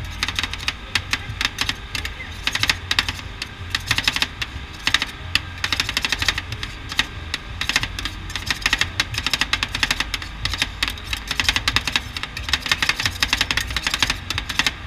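Metal spatulas chopping rapidly on a steel rolled-ice-cream cold plate, a fast clatter of sharp metal taps in quick runs with brief pauses, as banana is chopped into the ice cream base.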